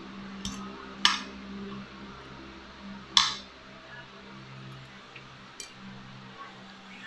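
Metal spoon and fork clinking on a plate while eating: two sharp clinks about two seconds apart and a few faint taps, over a low steady hum.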